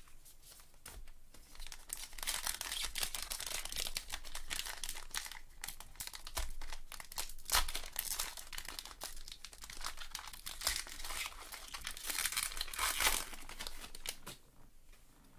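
Topps Gypsy Queen baseball card packs being torn open and their wrappers crinkled by hands in nitrile gloves: a steady crinkling crackle with sharper tearing sounds, easing off near the end.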